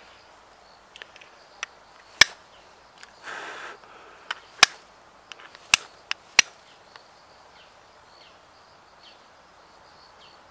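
Steel fire striker struck against a piece of flint: about a dozen sharp clicks between about one and seven seconds in, four of them loud, with a brief scrape a little after three seconds. The strikes throw sparks onto char cloth, which catches an ember.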